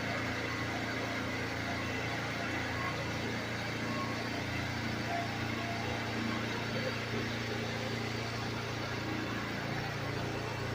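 Pressure washer running steadily while soap is sprayed: a constant low motor hum under an even spray hiss.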